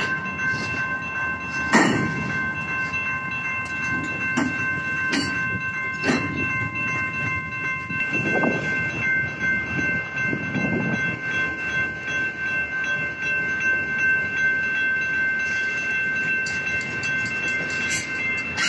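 Freight train cars rolling past at close range: steady rumble of the wheels with sharp clanks from the cars a few times, and two slower swells of rumble near the middle. Steady high-pitched ringing tones sound over it throughout.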